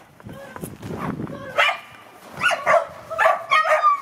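Dog barking: a soft low rustle, then a quick run of about six sharp barks in the second half, bunched close together near the end.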